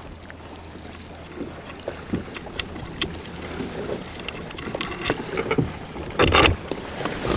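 Small clicks and taps of metal hardware being handled as wing nuts are fitted onto the ends of a rower's carriage frame, over a steady low rumble of wind on the microphone. A louder short burst of noise comes about six seconds in.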